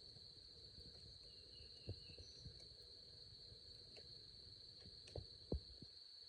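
Insects chirring in a steady high drone, with a few soft low knocks, the loudest about five and a half seconds in.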